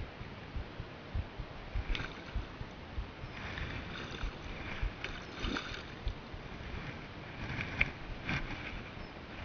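Water splashing in short bursts as a hooked fish thrashes at the surface while it is brought in to the bank, over low bumps of handling noise on the camera.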